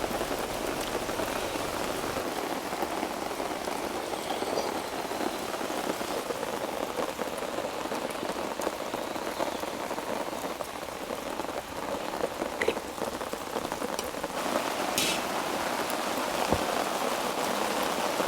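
Steady rain falling on a camping tarp overhead, with a few louder single drops.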